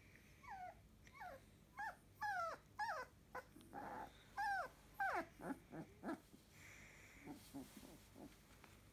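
Three-week-old Labrador Retriever puppy whimpering: a string of short high cries, each falling in pitch, over the first five seconds or so, then a few shorter, lower sounds.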